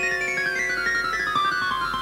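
Transition music: a quick run of short high notes falling step by step in pitch over a held chord.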